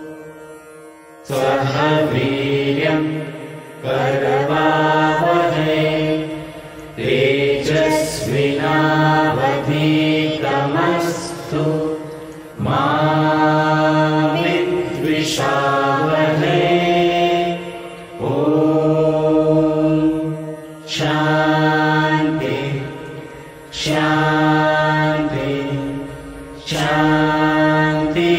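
A group of men's and women's voices singing a slow devotional prayer song together, in long held phrases with short pauses between them.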